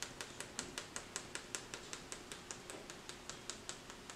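Spice shaker shaken over chicken wings, the seasoning rattling out in quick, even ticks, about five a second.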